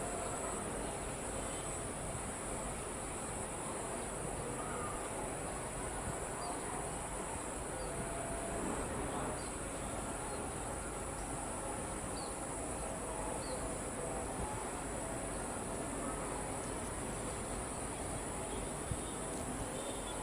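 Steady, high-pitched chorus of insects droning without a break, over a low background rumble, with a few faint short chirps in the middle.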